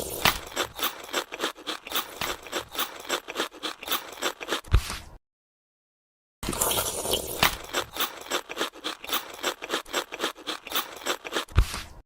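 Rapid, fairly even clicking and rattling, about five clicks a second, with a single low thump near the end of each run; the sound cuts out to dead silence for about a second midway and then resumes.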